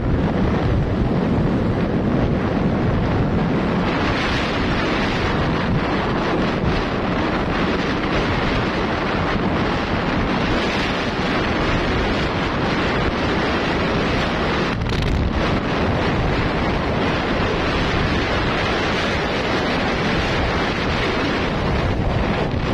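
Steady rush of wind on the microphone of a motorcycle on the move.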